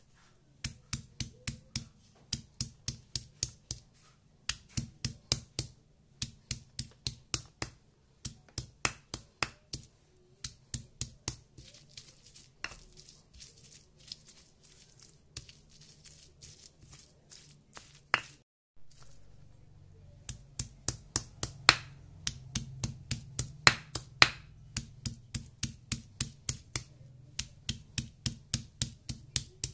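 Stone pestle pounding and grinding red chilies, shallots and garlic on a stone mortar (Indonesian ulekan and cobek). It makes sharp stone-on-stone knocks in quick runs of about four a second, with a break about two-thirds through. A faint low hum runs underneath.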